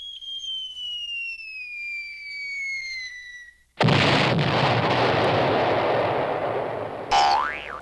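Falling-bomb sound effect: a whistle that drops steadily in pitch for about three and a half seconds, then a loud explosion that cuts in suddenly and rumbles away over about three seconds. Near the end a short whistle rises quickly.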